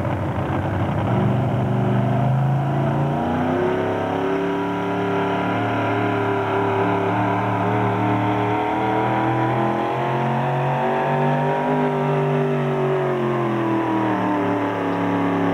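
Supercharged engine of a super modified 4x4 pulling truck revving up as it launches about two seconds in, then running at high revs under load as it drags the weight sled, with the pitch holding steady apart from a slight rise and dip near the end.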